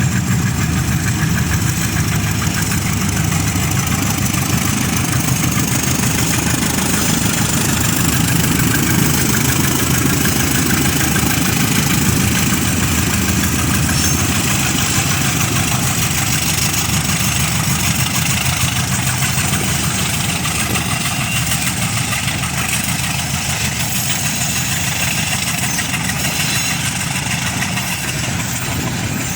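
Diesel locomotive engine running steadily at a low, even speed.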